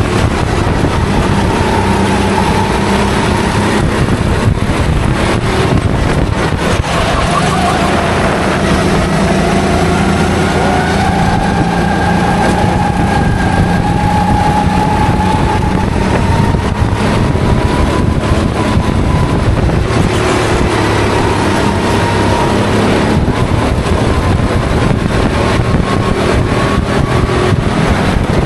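Onboard sound of a go-kart racing, its engine running hard without a break, the pitch rising and dipping gently as it accelerates out of corners and slows into them.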